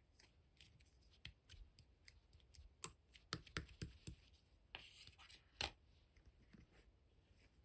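Slime being handled by hand: irregular soft clicks and small sticky pops, thickest in the middle, with a brief rustling hiss about five seconds in.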